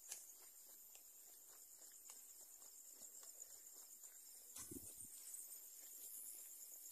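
Faint, steady chorus of crickets trilling at night, with a few soft ticks and a brief low thud about two-thirds of the way through.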